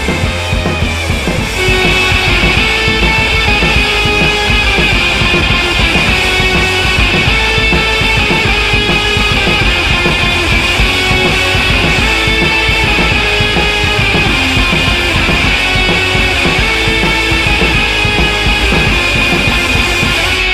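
Instrumental rock track with drum kit and guitar, playing dense and loud, stepping up in loudness about a second and a half in.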